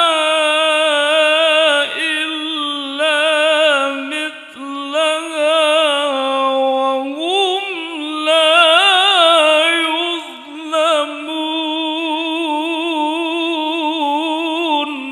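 A male qari reciting the Quran in a high, ornamented melodic style. He draws out long held notes with quick wavering turns, with short breaks for breath between phrases.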